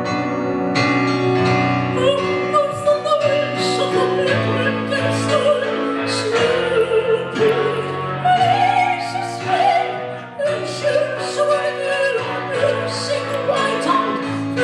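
Female voice singing in an operatic style with wide vibrato, over sustained piano and guitar accompaniment; the voice comes in about two seconds in.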